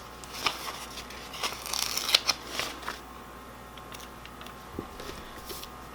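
Paper sticker sheets being handled: a run of crisp papery rustles and light clicks in the first three seconds, then only a few faint ticks.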